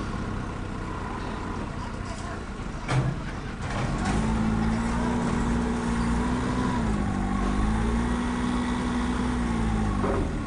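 Forklift engine revving up and holding its speed while the hydraulic mast lifts a shipping container off a flatbed trailer, dipping briefly partway and falling back near the end; a single knock about three seconds in.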